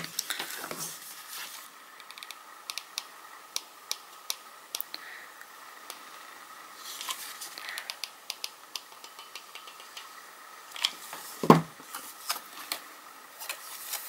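Paper and a hot glue gun being handled while gluing: scattered light clicks and taps, with one louder knock about eleven and a half seconds in.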